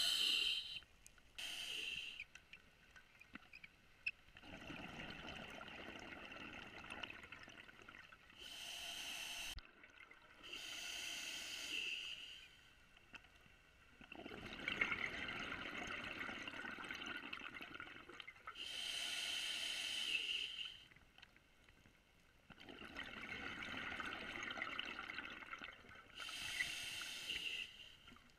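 Scuba diver breathing through a regulator underwater: short hissing inhalations alternate with longer bubbling exhalations in a slow, regular cycle.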